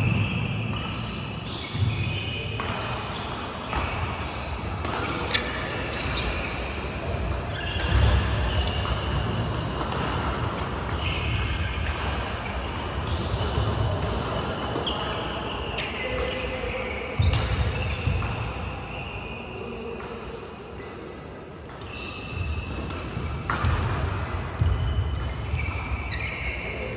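Badminton play on indoor court mats: sharp racket strikes on the shuttlecock, dull thuds of players' feet landing and lunging, and short high shoe squeaks, with more play from neighbouring courts mixed in.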